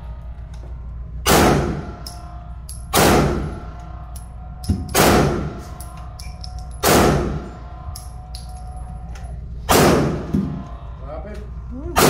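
Handgun firing single shots at a shooting range, about six shots roughly two seconds apart, each cracking sharply and dying away in a short echo.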